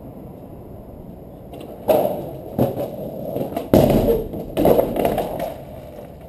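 Skateboard hitting and rolling across a slanted cellar door: a sudden clatter about two seconds in, then several hard knocks of the wheels and deck on the door, the heaviest near the middle, dying away near the end.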